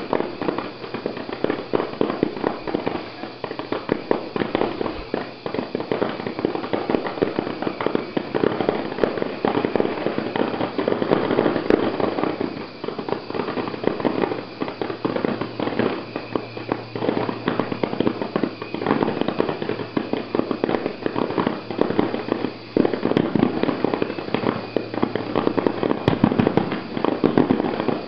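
Aerial fireworks display finale: a dense, continuous barrage of shell bursts and crackling, the bangs coming rapidly one after another.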